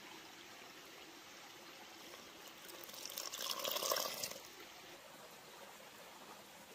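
Water poured from a wooden scoop in a thin stream into a wooden bowl of flour. The pour lasts about two seconds, starting just before halfway, growing louder and stopping suddenly.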